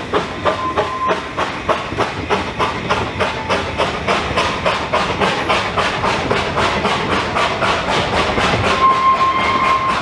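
Narrow-gauge steam locomotive working, with a steady rhythm of exhaust beats that quickens from about three to about five a second as it gathers speed. A short steady high note sounds near the end.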